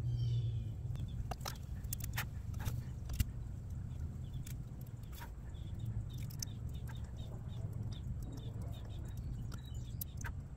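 Quiet background while a circuit board is hand-soldered: a steady low hum, scattered light clicks and ticks, and faint high chirps.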